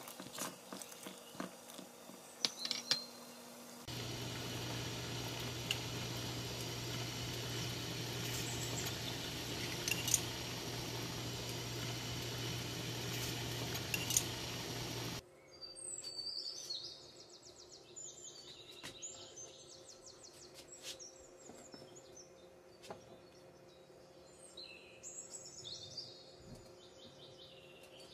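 Stovetop cooking sounds from a pan of tea at a boil, with light clicks and crackle at first. About four seconds in, a steady hiss with a low hum starts while milk heats in a pan, and it cuts off suddenly near the middle. After that it is quieter, with scattered high chirps.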